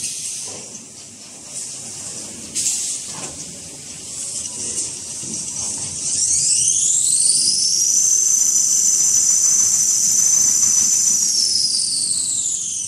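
A tissue paper production line running with a steady hiss and a few knocks. About six seconds in, a high motor whine rises in pitch, holds steady for a few seconds, then falls again near the end as the drive speeds up and slows back down.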